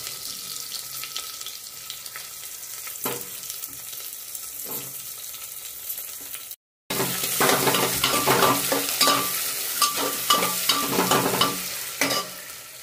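Sliced onions sizzling in hot oil in an aluminium pressure cooker. After a brief gap about halfway through, the frying is louder and a metal ladle scrapes and clicks against the pot as the onions are stirred.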